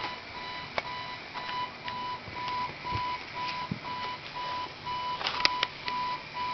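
An electronic beeper sounding one steady, high beep about twice a second, with a few sharp clicks or knocks, the loudest a quick cluster about five seconds in.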